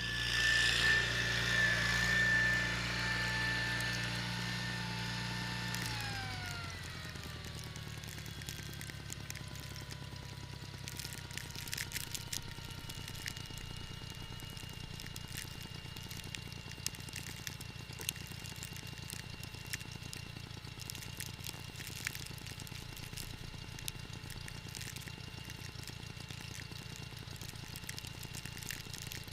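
John Deere 318 garden tractor's twin-cylinder engine running with a steady whine. About six seconds in, the whine winds down in pitch over a couple of seconds and the engine settles to a lower, steady idle, with scattered light clicks.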